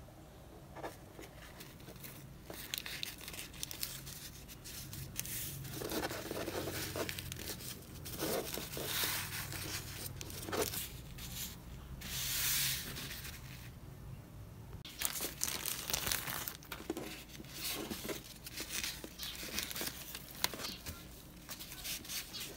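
Paper towel tearing and a thin plastic sheet crinkling as they are handled on a desk: a run of irregular rustles and swishes, then many short crackles in the second half.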